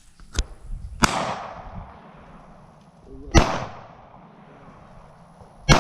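Three handgun shots about two and a half seconds apart, each with a short ringing tail, with a fainter sharp crack just before the first.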